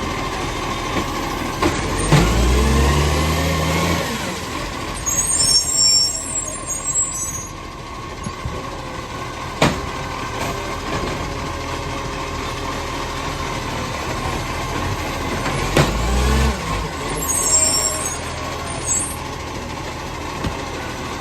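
Garbage truck's diesel engine running with an exhaust leak, revving up twice, with a burst of air hiss after each rev and a sharp clack in between.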